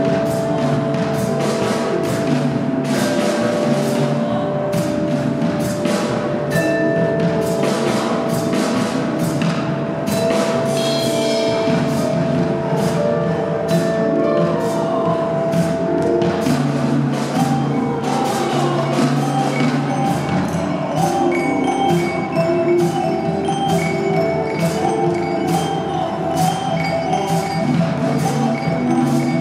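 Freely improvised ensemble music: a dense scatter of vibraphone and percussion strikes, wood-block-like knocks among them, over long held notes and slow pitch slides from the cello and voices, with harp.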